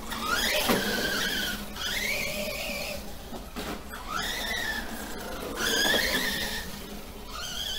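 Brushless electric motor of a Remo Hobby Dinosaurs Master 5 RC monster truck running on 3S, whining in repeated rising glides as the truck accelerates, loudest about six seconds in. A short sharp knock comes under a second in.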